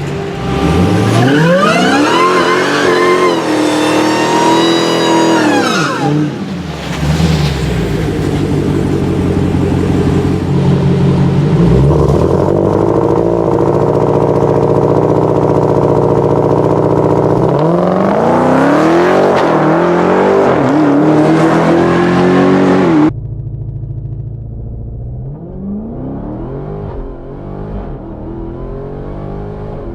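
Supercharged car engines revving and accelerating, the pitch climbing and falling with engine speed, the supercharger's whine carried on top. About 23 seconds in, the sound cuts to a quieter, duller recording of another engine revving.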